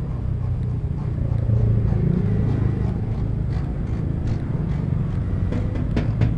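Road traffic rumble, swelling as a vehicle passes about two seconds in, with a few short clicks near the end.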